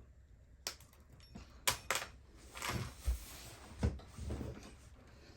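Small hard parts or a tool dropped and handled on a workbench: a string of separate sharp clicks and knocks with a short rustle between them, the clatter of a fumbled part.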